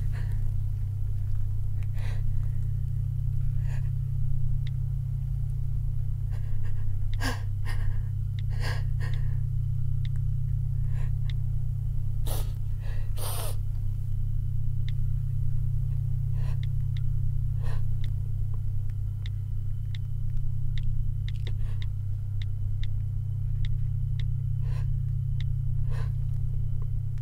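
A low, steady drone runs under the scene, with scattered short clicks and a few sharp breaths around the middle.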